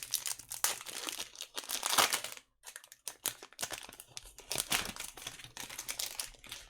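Plastic wrapper of a trading card pack crinkling and tearing as it is ripped open by hand. The crackling comes in bursts, with a short pause about two and a half seconds in.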